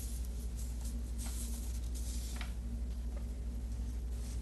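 Fast boat's engine running as a steady low drone with a slight regular pulse, under a faint hiss of wind and water.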